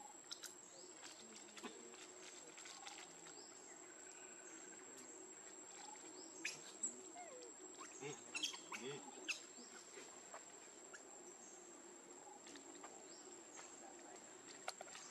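Faint forest ambience: a steady high insect drone, with scattered soft clicks and a few brief chirps bunched around the middle.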